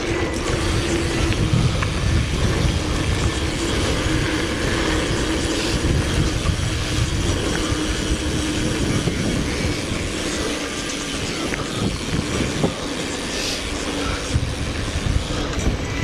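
Single-speed mountain bike being ridden on a trail: a steady rolling rumble of tyres and bike over the ground, with buffeting wind noise on the camera microphone.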